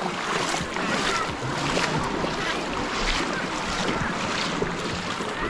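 Seaside beach ambience: wind buffeting the microphone over the wash of shallow Baltic Sea water, with faint distant voices from a crowded beach.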